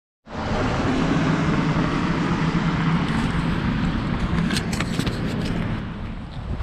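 A motor vehicle running steadily, a constant rumble with a low hum, starting abruptly just after the start; a few sharp clicks about four and a half seconds in.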